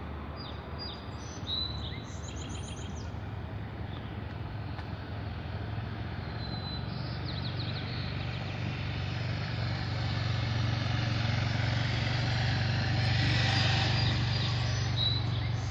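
A steady low engine drone that slowly grows louder, with small birds chirping in short bursts now and then.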